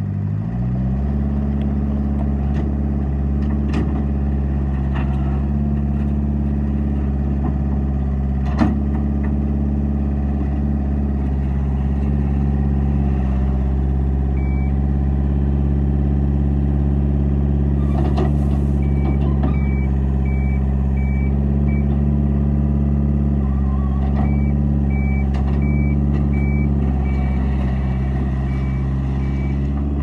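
Takeuchi TL130 tracked skid steer's diesel engine running steadily after speeding up in the first second, with its backup alarm beeping in short runs in the second half. One sharp knock about nine seconds in.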